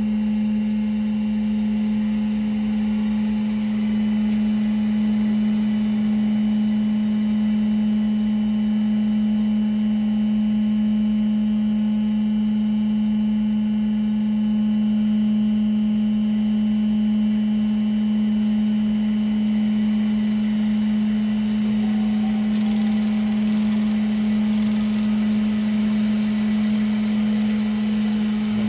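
Pegas 300 x 320 SHI-LR metal-cutting band saw running with a steady hum.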